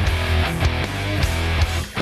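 Background music, continuous, with a brief dip in level just before the end.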